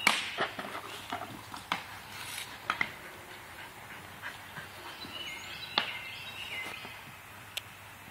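A sharp crack as a hockey stick shot strikes on a wooden halfpipe ramp, followed by scattered knocks and clicks of play, running footsteps and a dog's paws on the ramp. A bird sings a short run of stepped whistled notes about five seconds in.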